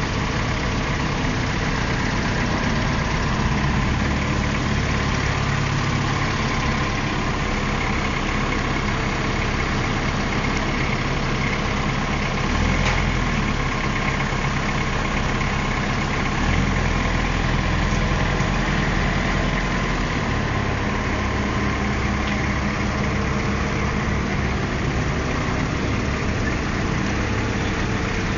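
Linde forklift's engine running steadily at low speed as the truck manoeuvres, the low rumble growing stronger for several seconds about halfway through.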